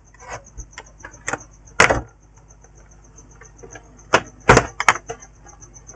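Sharp plastic clicks and knocks as a laptop's back cover is worked at and pried loose, the loudest about two seconds in and a quick cluster around four to five seconds in. A faint high, rapidly pulsing whine sits underneath.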